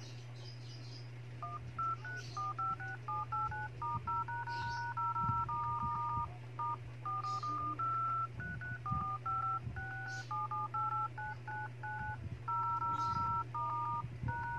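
Vivo Y91 emergency dialer keypad playing touch-tone (DTMF) beeps as digits are tapped in quick succession, starting about a second and a half in, some keys held a little longer. Each beep shows a tap registering on the newly fitted replacement touchscreen under test. A steady low hum runs underneath.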